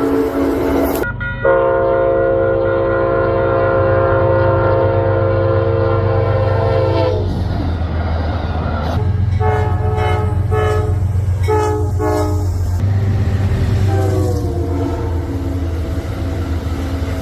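Amtrak locomotive air horn sounding a long steady blast, then a run of shorter blasts, and near the end another blast whose pitch drops, over the steady low rumble of the train. In the first second the tail of an earlier blast also falls in pitch before a cut.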